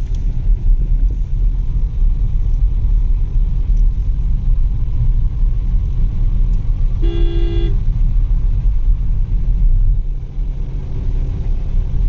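Road noise inside a car at highway speed: a steady low rumble of tyres and engine. About seven seconds in, a vehicle horn gives one short honk of under a second.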